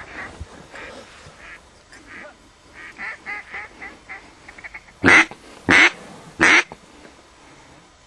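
Duck call blown in a run of short quacks, then three loud, drawn-out quacks about five seconds in.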